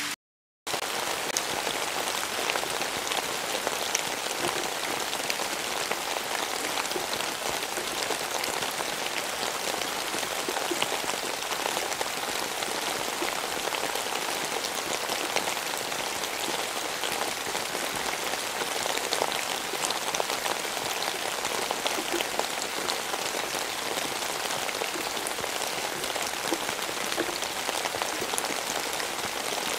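Steady rain falling, a dense even patter with scattered individual drops ticking through it, after a half-second gap in the sound right at the start.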